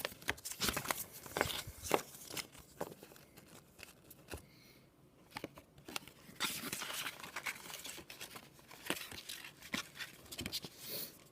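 Paper packaging being handled: rustling and crinkling of the iPhone's booklet and sticker packet, with scattered small taps and clicks. It goes quieter for a couple of seconds in the middle, then rustling picks up again.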